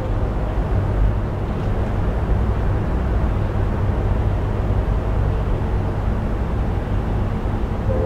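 Steady low rumble with hiss from a background field-recording ambience, heard in a gap between synthesized distant train-horn blasts.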